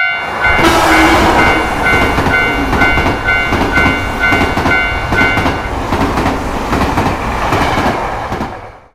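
Train running over rail joints with a clickety-clack rumble, while a railroad crossing bell dings about twice a second. The bell stops about two-thirds of the way through; the train noise goes on and fades out at the very end.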